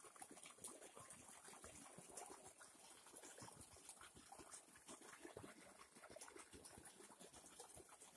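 Near silence: faint outdoor ambience with scattered small clicks and light splashes.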